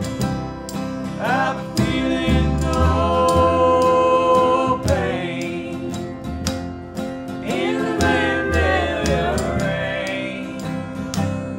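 Acoustic country band playing live: upright bass, guitar and a steady clicking beat under two long sliding melody phrases, with singing.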